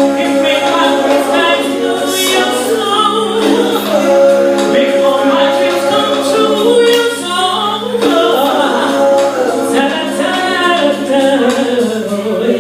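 Singing over backing music: wordless vocal runs and long held notes that bend and slide in pitch.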